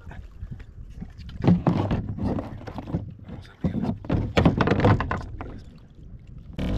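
Hooked tarpon thrashing at the surface beside a plastic kayak, splashing water and knocking against the hull in two bouts of about a second and a half each.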